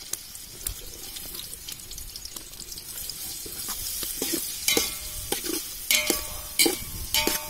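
Chopped onions sizzling in hot groundnut oil in a large metal pot. From about halfway, a metal ladle stirs them, scraping and knocking against the pot's side in a few sharp, ringing clanks.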